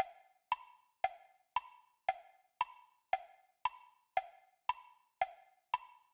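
Sharp ticking at a steady pace of about two ticks a second, each tick hollow and briefly ringing, like a wood block or clock tick.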